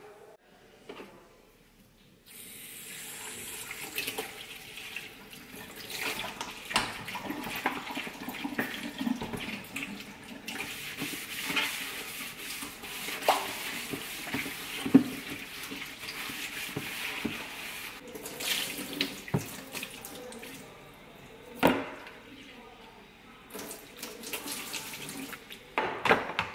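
Kitchen mixer tap running steadily into a stainless steel sink, starting about two seconds in, while a plastic cutlery tray is scrubbed with a sponge under the stream, with occasional sharp knocks of the tray against the sink.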